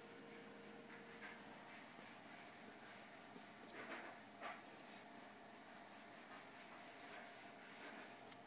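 Near silence: faint room hiss, with a few soft, brief rustles, the clearest two about four seconds in.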